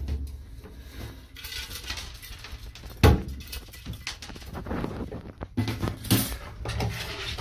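A wire-mesh live trap clattering against a bathtub, with scratchy scrabbling on the tub's surface and one sharp knock about three seconds in.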